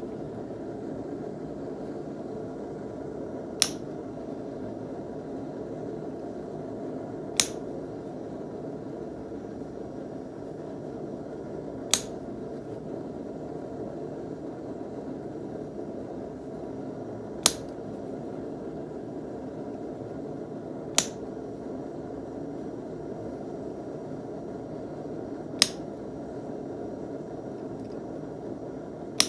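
Hand hammer striking a square-pointed rebar punch on a steel wire fork handle lying on an anvil: seven single sharp metallic blows a few seconds apart, one blow per decorative punch mark. A steady low rushing noise runs underneath.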